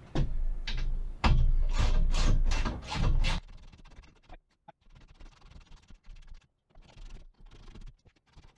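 Socket ratchet clicking in quick strokes, about four a second, as the bolts holding a steel bed frame are tightened. The clicking is loud for the first three seconds or so, then gives way to faint scattered clicks and rustling.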